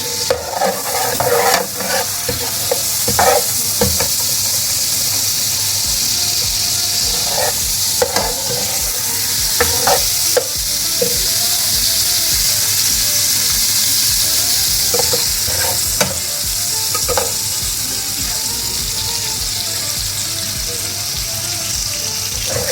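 Onion and cumin seeds sizzling steadily in hot oil in a pan, frying until they brown. A spoon scrapes and stirs them now and then.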